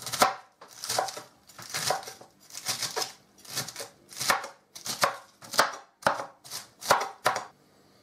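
Chef's knife dicing shredded iceberg lettuce on a cutting board: about a dozen crisp, crunching strokes, roughly one and a half a second, each ending in a knock of the blade on the board. The chopping stops shortly before the end.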